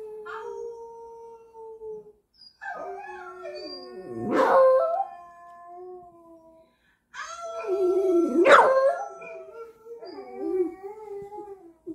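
Dogs howling: long howls held on one pitch, several voices overlapping at different pitches, with two louder swooping cries about four and eight and a half seconds in.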